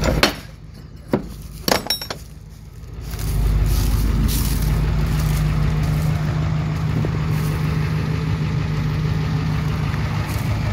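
A few sharp metal clicks and clanks in the first two seconds, then the 1994 Ford E350 box truck's diesel engine idling steadily.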